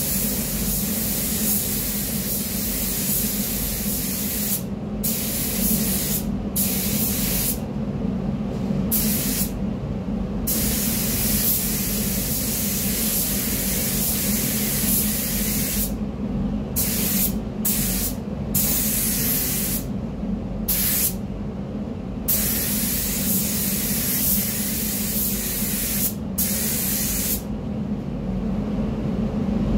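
Gravity-feed paint spray gun hissing as compressed air atomises paint onto a bumper, in bursts that stop each time the trigger is let off, about a dozen times. A steady low hum runs under it.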